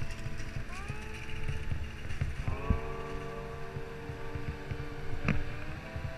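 Uneven wind and road rumble from a moving e-bike, under music with long held notes that slide into new chords twice. A single sharp click comes about five seconds in.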